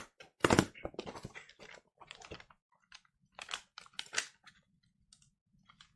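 Irregular crinkling, rustling and sharp tearing clicks of paper packaging being handled and opened, loudest in the first couple of seconds and thinning out after.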